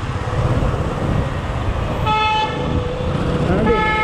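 A vehicle horn honks twice: a short blast about two seconds in and another near the end. Beneath it runs the steady low rumble of the motorcycle ride through traffic.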